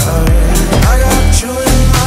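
Electronic dance-pop music with a steady kick-drum beat under synth and vocal melody. The beat drops out briefly about one and a half seconds in.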